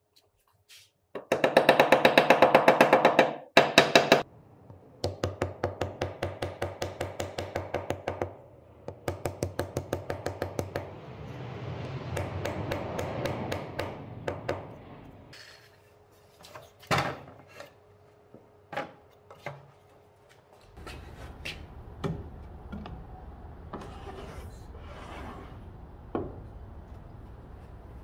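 Mallet tapping a thin wooden handle into a slot in a drawer front: several runs of rapid light taps, followed by a few single knocks.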